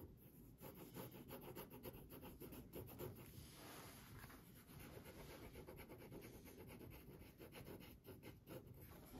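Felt-tip pen scratching faintly on paper in quick, irregular back-and-forth strokes as an area is coloured in.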